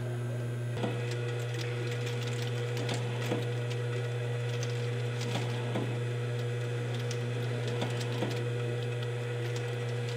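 Cozzoli FSV50 mini monoblock vial filling and stoppering machine running: a steady low hum, a steady higher tone that joins about a second in, and irregular light clicks every half second to a second.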